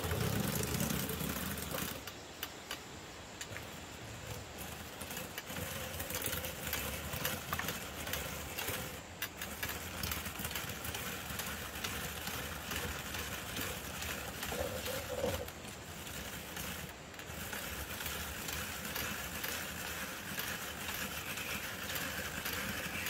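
Cassava slicer's spinning blade disc cutting fresh cassava roots into chips: a continuous rasping, chopping noise dense with small clicks.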